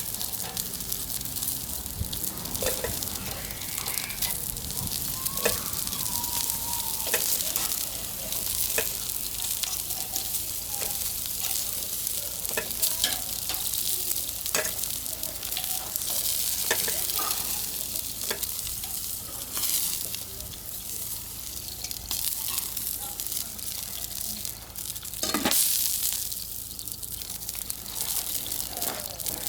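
Food sizzling on a grill over a fire: a steady hiss with scattered crackles and pops.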